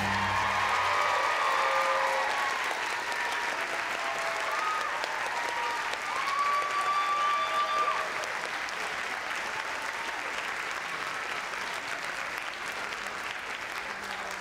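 Theatre audience applauding and cheering at the end of a song, with shouts and whoops over the clapping in the first half. The applause eases a little about eight seconds in.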